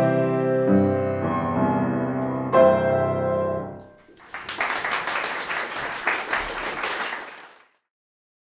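Grand piano playing the closing bars of a waltz, with a final chord struck a little before the middle that rings and fades away. Then about three seconds of audience applause, which cuts off suddenly.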